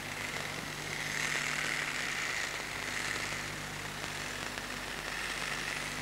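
Electric toothbrush converted into a drawing pen, its small motor buzzing steadily while it draws on paper, swelling about a second in and again near the end.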